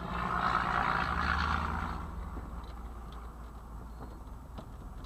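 A vehicle engine idling with a low, steady hum, and a rush of noise that swells and fades away over the first two seconds.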